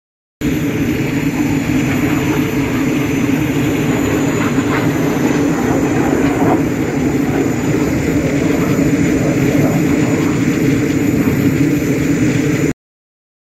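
Aircraft jet engine running: a steady, loud rumble with a thin, steady high whine above it. It starts and cuts off abruptly.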